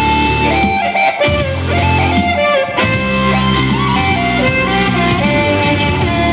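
Harmonica played in a bluesy rock style, with notes sliding in pitch, over a guitar backing with steady low notes.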